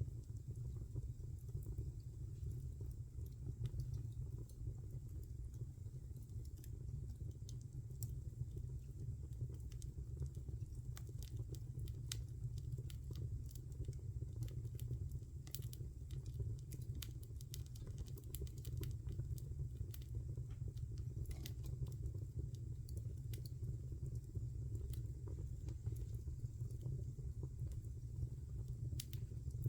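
Wood fire burning in a fireplace: a steady low rumble of flames with irregular sharp crackles and pops scattered throughout.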